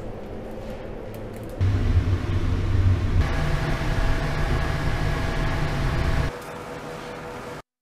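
Steady low rumbling roar of a salt-roasting furnace at high heat, with a faint steady hum over it in the middle. The sound jumps louder a little under two seconds in, drops back about six seconds in, and cuts off suddenly near the end.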